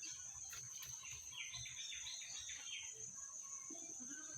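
Outdoor ambience: a steady high insect drone, with a bird giving a quick run of short chirps about a second and a half in.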